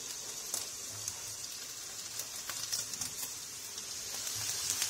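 Oil sizzling steadily in frying pans of sliced sausages and of eggs cooking on fried onions, with scattered small pops.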